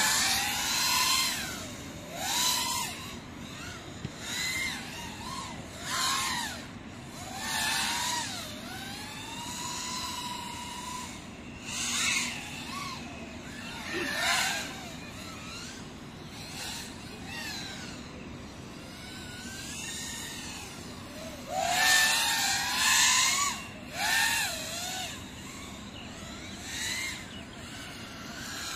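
FPV quadcopter's electric motors whining in repeated surges, the pitch rising and falling with each burst of throttle. There is a longer held whine about a third of the way in, and the loudest surges come late on.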